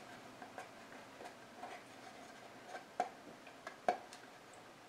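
Faint scattered clicks and small taps of light handling on a work surface, with two sharper clicks about three and four seconds in.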